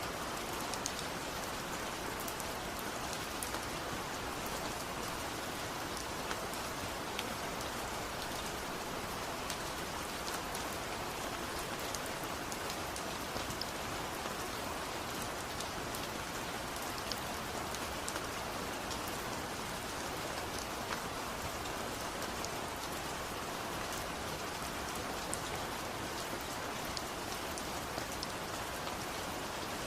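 Steady rain falling and pattering on hard surfaces, with scattered individual drop ticks.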